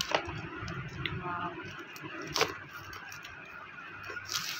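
Clear plastic shrink wrap on a smartwatch box being handled and peeled off: light crinkling with a few sharp crackles, the loudest about two and a half seconds in, and a short rustle near the end.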